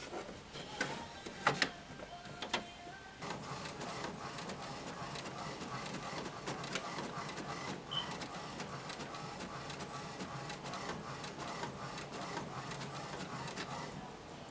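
HP DeskJet inkjet printer printing a sheet of sticker paper: a few sharp clicks in the first three seconds, then the printer runs steadily with faint ticking as the printed sheet feeds out.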